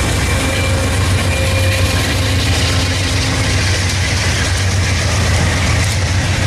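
Amtrak Southwest Chief's baggage car and bi-level Superliner coaches rolling past close by as the train pulls out of the station, a steady rumble of wheels on the rails over a low hum.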